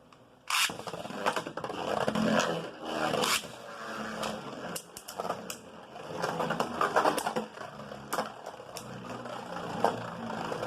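Two Beyblade spinning tops, Winning Valkyrie and Cho-Z Spriggan, are launched with a sudden rip about half a second in. They then spin and grind against the plastic stadium floor, with repeated sharp clacks as the tops collide.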